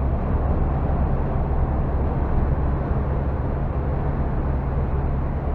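Steady engine drone and road noise inside the cab of a truck driving on the motorway.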